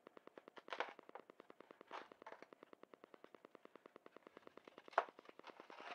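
Styrofoam packing inserts squeaking, scraping and knocking as they are lifted and shifted inside a foam shipping box, with a sharp scrape-click about five seconds in. A fast, even ticking of about ten a second runs underneath.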